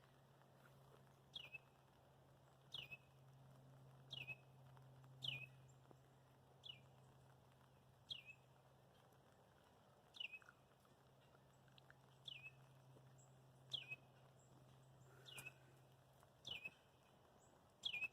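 A single bird repeating a short, sharp call that falls in pitch, about once every second and a half.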